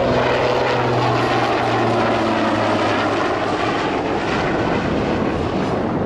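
Eurocopter AS 532 Super Puma twin-turbine military helicopter flying a low display pass and pulling up overhead: loud, steady rotor and turbine noise, with a low steady hum that fades about halfway through as it climbs away.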